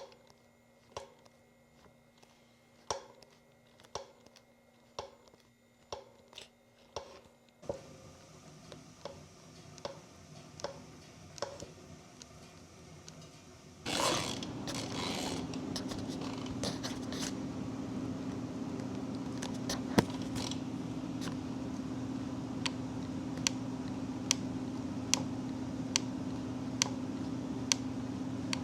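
Sharp, regular clicking from a Specialized S-Works SL8 carbon road bike, about one click a second at first, then about two a second over a steady hum that comes in about halfway. It is a persistent click that reappears under climbing load, which the owner suspects comes from the Enduro ceramic bottom bracket or possibly a cracked carbon frame.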